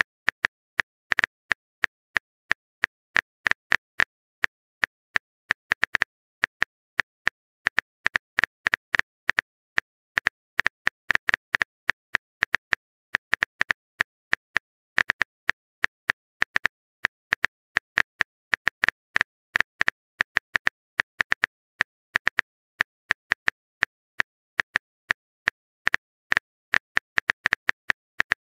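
Phone keyboard typing sound effect from a texting-story app: a long run of short, sharp key clicks at uneven spacing, several a second, as if a message is being typed.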